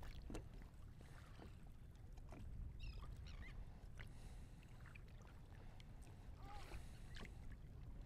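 Near silence on a kayak at sea: faint water rumble along the hull with scattered small clicks, and a couple of faint high chirps a few seconds apart.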